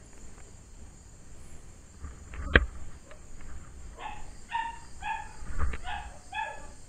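Wind buffeting the microphone, a single sharp knock about two and a half seconds in, then a dog barking about six times in quick succession in the second half.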